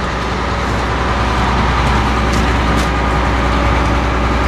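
Volumetric concrete mixer truck's engine running steadily, a constant low hum under even mechanical noise.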